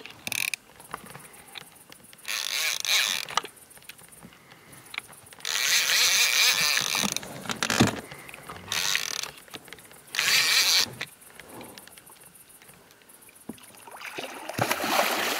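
Fishing reel whirring in about five rasping bursts of roughly a second each, with quieter gaps between, while a hooked catfish is played on a bent rod. There is one sharp knock near the middle.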